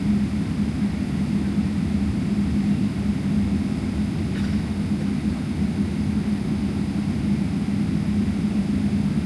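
Steady jet airliner cabin noise inside a Boeing 777-300ER: a constant rumble of its GE90 engines and airflow, with a steady low hum running through it.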